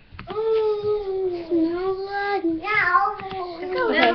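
A young girl singing in long drawn-out notes that waver and dip, sliding down in pitch near the end.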